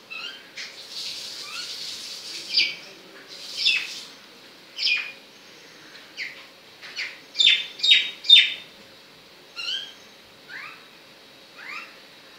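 Sharp, high chirping calls, each sliding downward in pitch, repeated irregularly about once a second, with a quick run of four louder chirps about midway.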